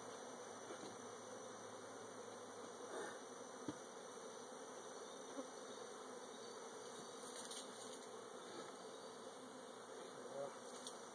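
A freshly hived swarm of honey bees buzzing steadily and faintly as they fly around the hive entrance, with a single light knock about four seconds in.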